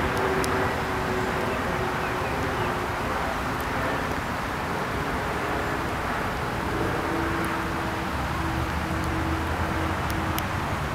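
Steady outdoor background rumble like distant traffic, with a faint droning hum that fades in and out, stronger in the second half.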